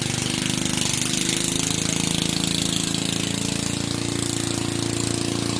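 A small engine running steadily with a rapid, even pulse, its pitch wavering slightly about a second in.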